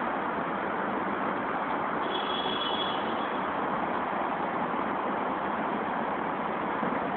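Steady rush of city road traffic, an even noise with no distinct vehicle standing out. A faint thin high tone is heard for about a second in the middle.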